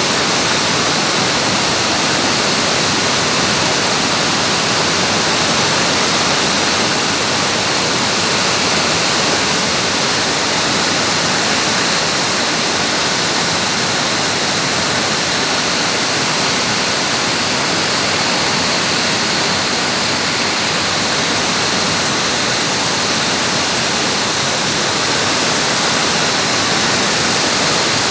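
Heavy rain pouring down, a loud, steady, unbroken hiss.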